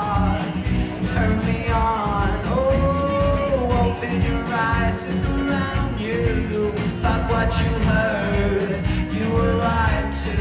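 Live rock band playing: a lead vocal singing a melody with long held notes, over strummed acoustic guitar, electric guitar and bass with a steady beat.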